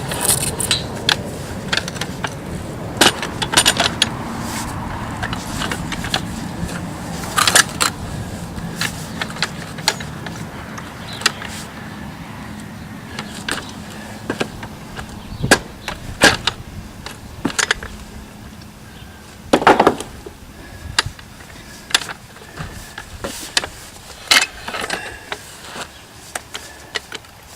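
Scattered knocks, clacks and metallic clinks of pallet boards and a floor jack being handled while the boards are forced off the pallet. A low steady hum runs under the first half and stops about twelve seconds in.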